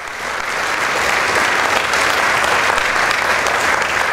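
An audience applauding, loud and steady, the clapping building up over the first half second.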